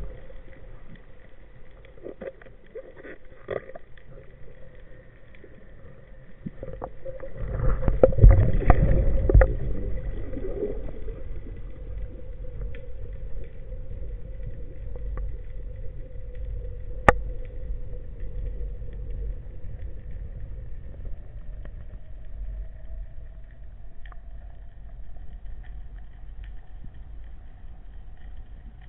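A boat's motor running steadily, with a louder rumbling stretch about eight seconds in and a single sharp click near the middle. Its tone rises slightly over the last several seconds.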